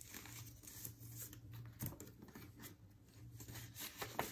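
Faint rustling and flicking of paper banknotes as they are counted by hand out of a cash envelope, over a low steady hum.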